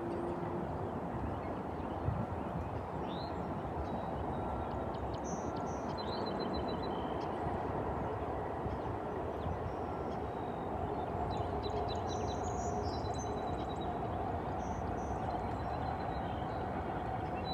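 Small birds chirping and trilling now and then over a steady low rumble of distant traffic.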